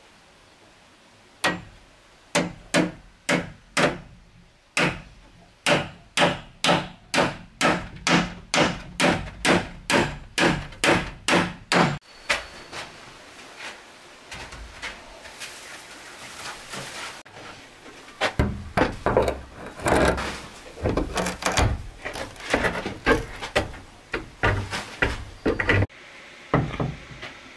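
Hammer driving nails through a hinge into a wooden plank door: a long run of sharp, even strikes, about two or three a second, for some ten seconds. In the second half the wooden door is moved and swung, with irregular knocks and rattles of wood against the frame.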